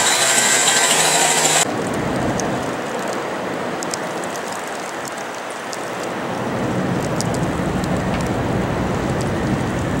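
A snow blower throws snow with a loud, steady hiss that cuts off abruptly under two seconds in. A quieter steady hiss of snowstorm ambience follows, with scattered faint ticks.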